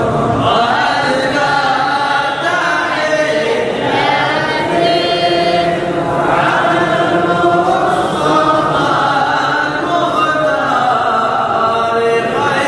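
A group of men singing a devotional Arabic chant together, voices only, in long held phrases.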